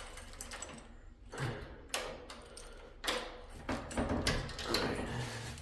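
Yale door lock worked with its key: scattered metallic clicks and short rattles as the key turns the cylinder and the bolt moves.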